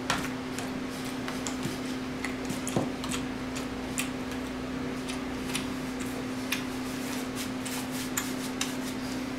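Scattered light clicks and taps at irregular intervals, with a sharper click at the start and a duller knock about three seconds in, over a steady low hum.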